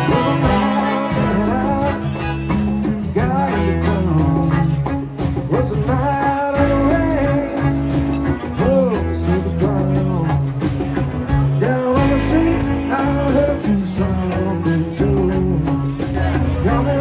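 A band playing: guitar and bass under a bending melody line, over a steady beat.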